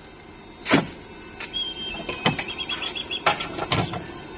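Several sharp knocks and clanks. The loudest comes about three-quarters of a second in, and two clusters follow in the second half. Between them a thin, high, wavering squeak lasts about a second and a half.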